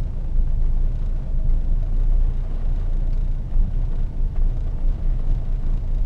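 1974 Valiant's engine idling steadily while it warms up after a cold start, heard from inside the car's cabin.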